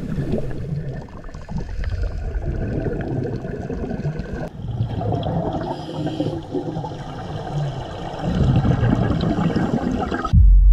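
Scuba regulator exhaust bubbles gurgling and bubbling underwater during a dive descent, growing louder about eight seconds in. Music cuts in abruptly just before the end.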